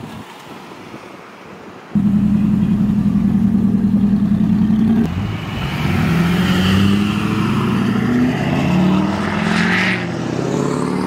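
Pickup truck engines and exhausts running loud as trucks drive close past. About two seconds in, a steady, pulsing drone starts suddenly. From about five seconds the pitch rises and falls as the engine revs.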